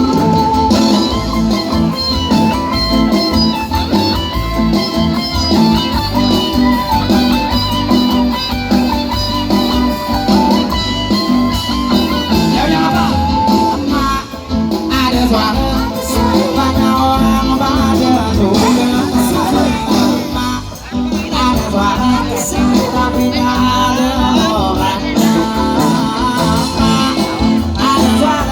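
Band music led by guitar over a steady beat.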